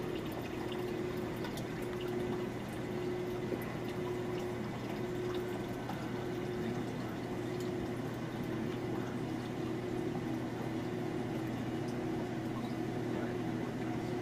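Steady background hum and hiss, with a faint mid-pitched tone that keeps cutting in and out.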